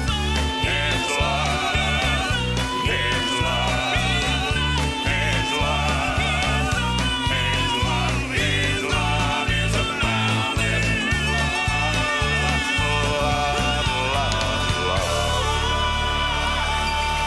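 Southern gospel recording playing: a band over a steady, pulsing bass with melodic lines above. About fifteen seconds in it settles onto a long held chord with a cymbal wash.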